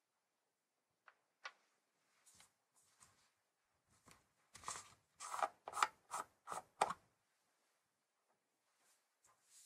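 Plastic lid being twisted off a plastic slime tub: a few faint clicks, then a run of about six short scraping strokes of plastic on plastic from about halfway through, the loudest part.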